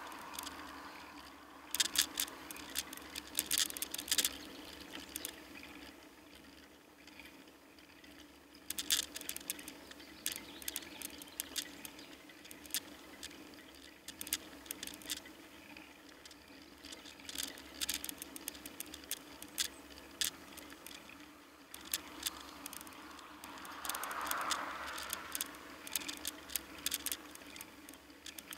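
Irregular clicking and rattling from the bicycle and its handlebar camera mount jolting over the road surface, over a steady hum of tyre and road noise. A passing car swells and fades about three-quarters of the way through.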